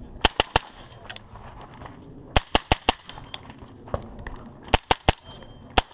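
Magazine-fed rifle firing rapid shots in quick strings: three together, a pause, four together, a single shot, three more, then one last shot, about a dozen sharp cracks in all.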